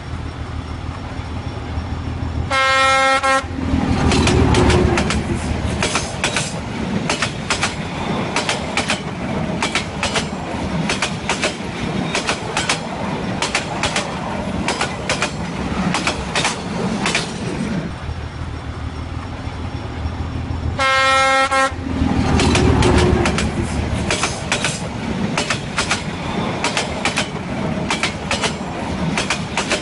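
Union Pacific 844, a 4-8-4 steam locomotive, sounds a short whistle blast and then chuffs steadily as it moves off slowly, with steam hissing from the cylinders; the chuffing fades, and a second short whistle blast about 21 seconds in starts the same chuffing again.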